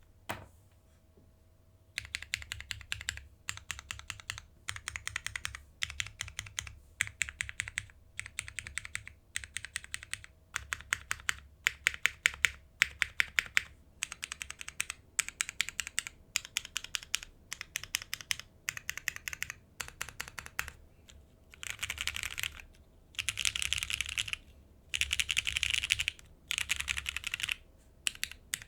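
Typing on a Singa Kohaku custom mechanical keyboard with lubed, broken-in MX Black linear switches, a leaf-spring aluminium plate and GMK keycaps. After a single click and a short pause, keystrokes come in quick runs of about a second with brief gaps, growing denser and louder near the end.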